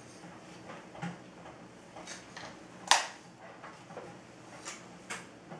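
A few light clicks and clacks from a spring-clamp curling iron being handled as hair is wrapped and held, the sharpest one about three seconds in.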